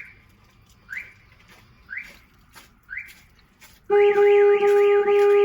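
Car alarm warning stage, then the alarm triggering: a short rising chirp about once a second, and nearly four seconds in the car horn sounds steadily together with a siren sweeping rapidly up and down. The Starline S9 alarm is set off because the driver ID tag is not present.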